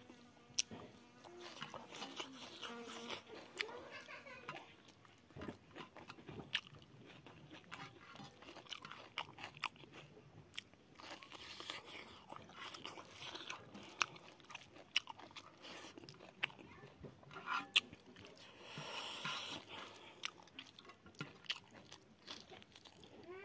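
Close-up eating sounds of a person chewing mouthfuls of rice and greens eaten by hand: steady chewing with frequent sharp mouth clicks and smacks, and some crunchy bites.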